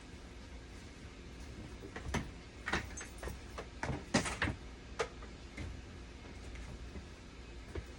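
A quick run of sharp clicks and knocks from small hard parts being handled, bunched between about two and five seconds in, over a low steady hum.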